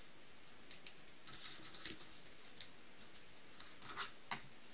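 Scattered light clicks and taps of small tools, parts and a bottle being handled on a tabletop, with a short cluster of clicks about a second and a half in.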